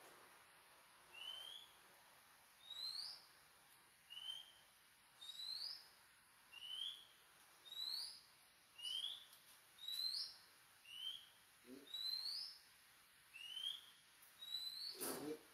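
A bird calling over and over: short rising whistled notes that alternate between a lower and a higher pitch, about one every second. Near the end there is one brief, louder noise.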